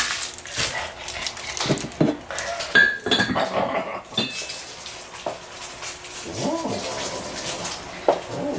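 A man making strange animal-like vocal noises, with sharp clicks, clinks and knocks scattered among them.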